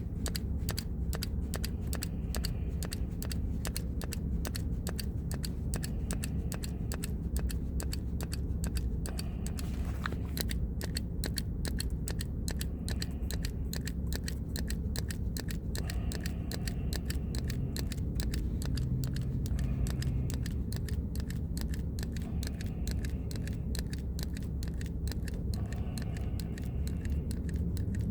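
Hand gripper exerciser clicking once with each full squeeze, in a steady run of fast repetitions at about three clicks a second.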